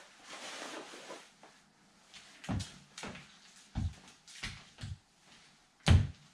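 Brief rustling, then about seven soft, dull thumps at irregular intervals, the loudest near the end: handling noise as clothing and shoes are moved about.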